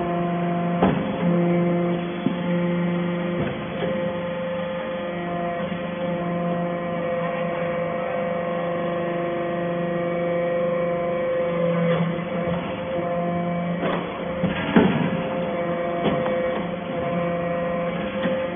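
Hydraulic metal-chip briquetting press running: a steady hum from its hydraulic power unit, with a lower tone that drops in and out. A few knocks and clanks come as briquettes are pressed and pushed out, the loudest about 15 seconds in.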